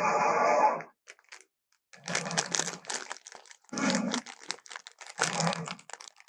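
Custom-made Spinosaurus creature sound effect: a roar ends just under a second in, and after a short gap comes a string of broken, crackling growls and rasps.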